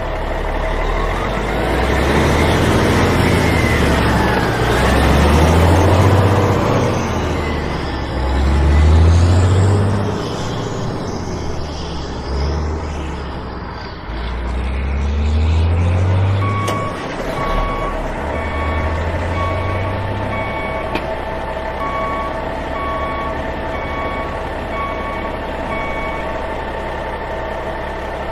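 Heavy truck engine sound revving in low, rising surges, then settling to a steady run while a reversing alarm beeps evenly for about ten seconds, starting a little past halfway.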